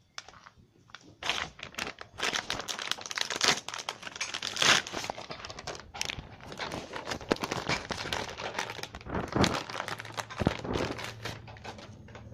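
A plastic wrapper crinkling and rustling as a new foam air-filter element is pulled out of it: a dense run of crackles starting about a second in.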